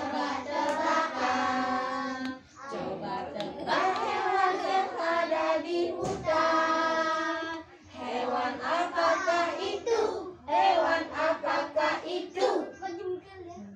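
A group of young children singing a song together, in phrases with long held notes and short breaks between them.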